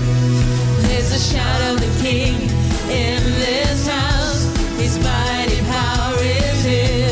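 Worship music from a band with bass and drums. A singing voice with vibrato comes in about a second in.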